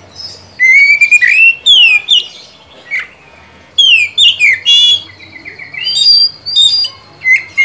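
Oriental magpie-robin singing loud bursts of clear whistled phrases: sliding sweeps and quick trills, in four runs with short pauses between them.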